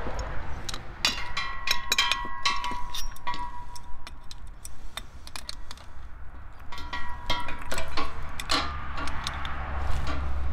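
An adjustable wrench and brass propane fittings clinking against a metal twin-tank regulator as a hose fitting is threaded in: short ringing metal clinks in two bunches, about a second in and again about seven seconds in. A steady low rumble of road traffic lies underneath.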